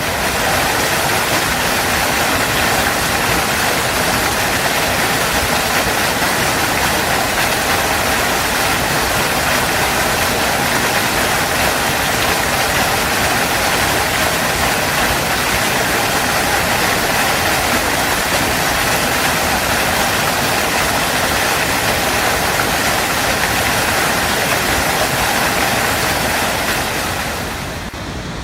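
Waterfall: a steady, dense rush of falling water, its level dipping slightly near the end.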